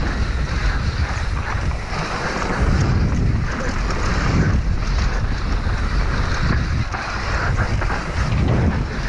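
Wind rushing over the microphone of a downhill mountain bike at speed, with the tyres running over loose dirt and short knocks and rattles from the bike over bumps.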